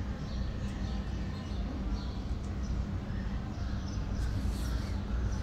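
Steady low background hum, with faint short high-pitched sounds scattered through it.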